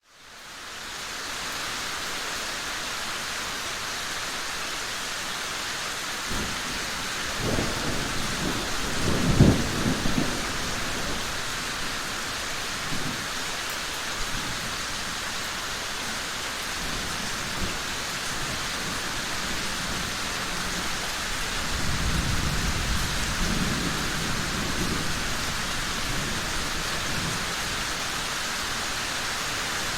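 Steady heavy rain with thunder rumbling twice, the louder roll about 8 to 10 seconds in and a softer one about 22 to 25 seconds in.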